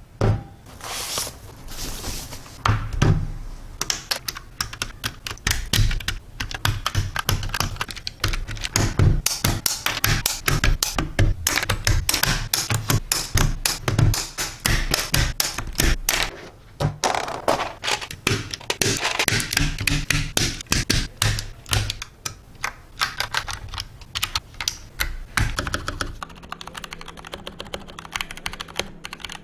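Mechanical keyboard keys clacking in fast, irregular strings of clicks, like typing, with some heavier thunks. A low steady hum joins near the end, under lighter clicking.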